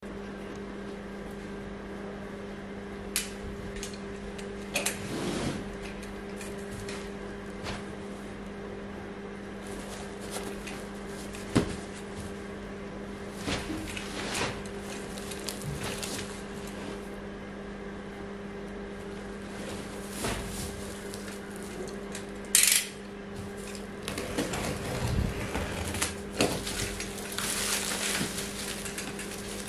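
A cardboard parcel being handled and cut open with a utility knife: scattered clicks and knocks, then steady rustling and crinkling of plastic stretch wrap being sliced and pulled during the last few seconds. A steady low hum runs underneath throughout.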